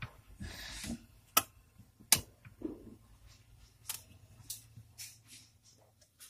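Refrigerator thermostat dial being turned by hand, giving a series of sharp clicks, with a brief rustle of handling near the start. Under it, the faint steady low hum of the fridge's compressor running.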